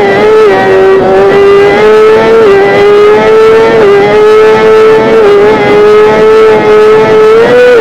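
Kawasaki ZX-10R's inline-four engine running at high, fairly steady revs under way, its pitch creeping up and then dipping briefly a few times.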